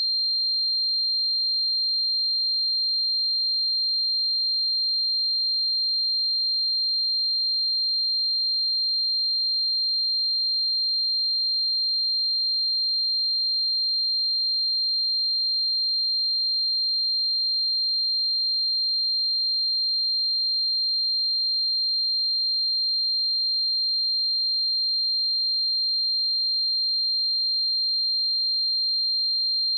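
Steady 4181 Hz sine-wave test tone, a single high-pitched pure tone held at constant pitch and level, used for testing speakers and headphones.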